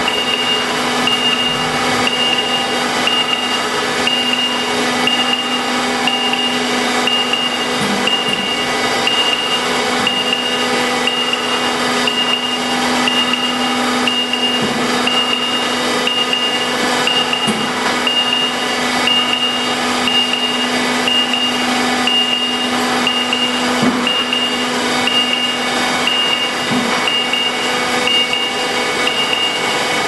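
Steady mechanical hum of the drop-bottom heat-treatment furnace's load hoist lowering its steel work rack. A high beep repeats at a steady pace throughout, with a few light knocks.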